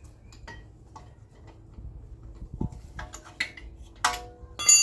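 Steel hand tools clinking against a car's rear brake caliper bracket as its 18 mm bolts are tightened with a socket and wrench: light scattered clicks, then from about three seconds in several sharp metallic clanks that ring, the loudest near the end.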